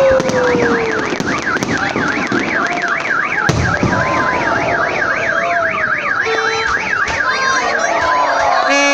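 Car alarm wailing in a fast up-and-down warble, about three rises and falls a second, with fireworks bangs cracking over it and a falling firework whistle at the start.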